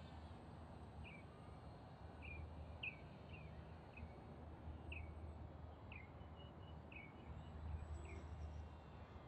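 Faint bird chirping: short, downward-sliding chirps about once a second, over a low steady rumble.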